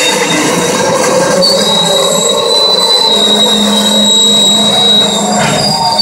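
Freight train of tank cars rolling past close by, its steel wheels squealing in a loud, steady high tone that shifts slightly higher near the end, over the rumble and clatter of the cars.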